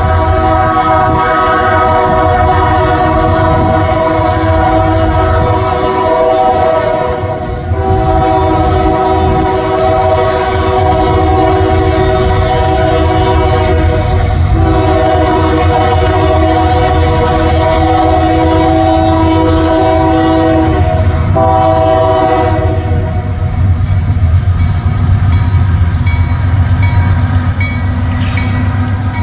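Union Pacific diesel locomotive's multi-chime air horn sounding long, loud blasts with brief breaks, stopping about 22 seconds in, over the steady rumble of the locomotive's diesel engine. After the horn stops, the engine and the rolling wheels of the passing locomotives are heard close by.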